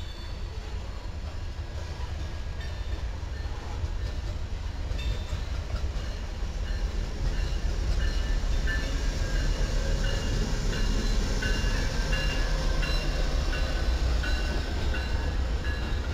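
Amtrak passenger train with bilevel Superliner cars rolling past on curved track: a steady low rumble of wheels on rail, with short, high-pitched wheel squeals coming again and again. It grows louder over the first half as the cars pass close by.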